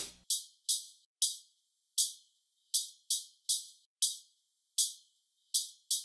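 A percussion recording of short, decaying strikes at an uneven rhythm, about a dozen hits, played through a brick-wall high-pass filter at about 3 kHz. Just after the start the lows and mids vanish, leaving only the thin, tinny top of each hit.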